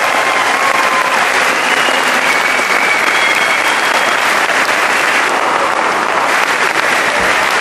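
Large audience applauding steadily, with a few short whistles above the clapping.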